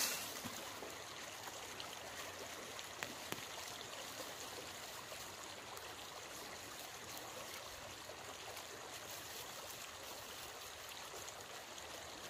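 Faint steady rushing background noise, with a single light tick about three seconds in.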